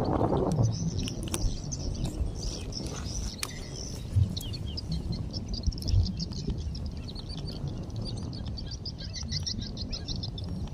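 Birds chirping over a steady wind rumble on the microphone, ending in a fast run of short chirps over the last few seconds; a few soft thumps in between.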